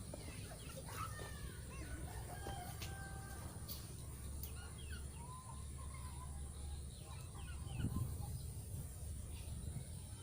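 Birds calling: many short chirps and a few longer held calls, over a steady low rumble.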